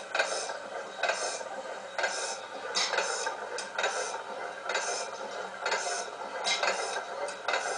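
1896 T. Melvin town gas engine running, with sharp clattering beats roughly once a second, not quite evenly spaced, over a steady mechanical clatter.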